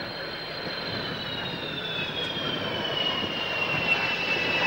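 Delta-wing jet fighter's engine as it lands: a steady jet rush with a high whine that slides slowly down in pitch, growing a little louder.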